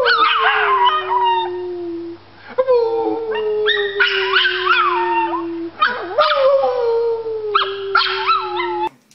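A dog howling: three long drawn-out howls with short breaks between them, each sliding slowly down in pitch, with higher wavering yips and whines over them. The sound cuts off abruptly near the end.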